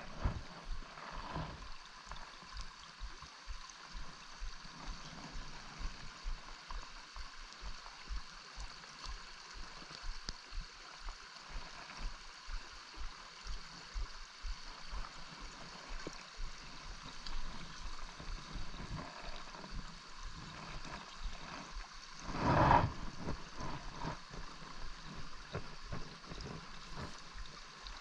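Small stream flowing: a steady rush of running water. One louder thump about twenty-two seconds in.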